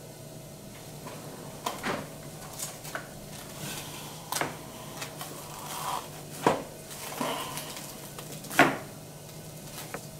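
Kitchen handling sounds: cling wrap pulled from its box with crinkling, and several sharp knocks as things are set down on the stone countertop, the loudest near the end. A steady low hum runs underneath.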